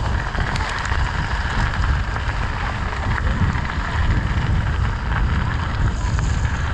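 Mountain bike riding on a dirt singletrack: wind rumbling on the microphone over steady tyre noise on the trail, with a few faint clicks and rattles.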